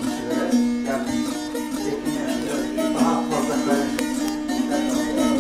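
Background music: a plucked string instrument playing a melody over a steady low drone.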